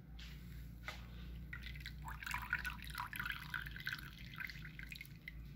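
Sugarcane juice dripping and trickling through a mesh strainer into a metal pot. A few separate drops come first, then a couple of seconds of quick, dense dripping in the middle.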